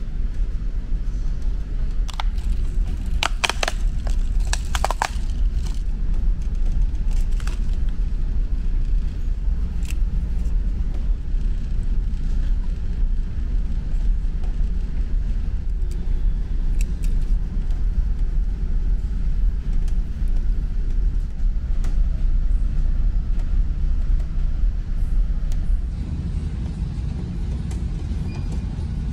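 Steady low drone of a ferry's engines heard from inside the ship, a little quieter near the end. A few sharp clicks and rattles come about two to five seconds in.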